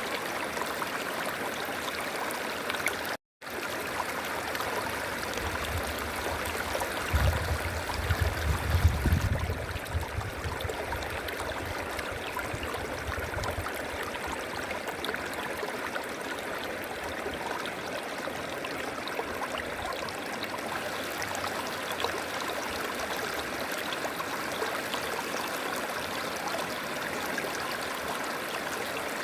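River water flowing in a steady rush. It cuts out completely for a split second about three seconds in, and a low rumble swells under the flow from about six to ten seconds in.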